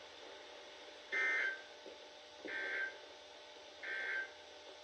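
NOAA Weather Radio SAME end-of-message data bursts: three short, warbling digital tones about a second apart, the first the loudest, marking the end of a Required Weekly Test broadcast.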